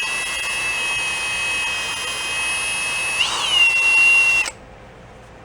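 Electric drill spinning a small spring-tensioned brake-cylinder hone in the cylinder bore of a 1962 Honda Cub 50 engine: a steady motor whine. A little past three seconds in its pitch jumps up and settles back, and it is loudest just before it cuts off about a second before the end.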